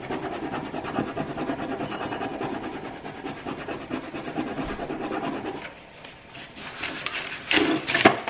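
Paper towel rubbed rapidly back and forth inside a desk drawer, wiping up spilled nail gel, for about six seconds. Then a few sharp knocks near the end.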